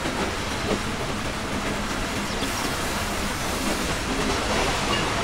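Passenger train running along the track, heard from inside the coach: a steady rumble and hiss of wheels on rails with a faint low hum.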